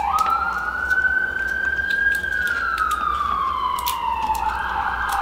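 A siren wailing in a slow rise and fall: it climbs in pitch over the first two seconds, slides back down over the next few, and starts climbing again near the end. Scattered light clicks of a plastic toy being handled sound over it.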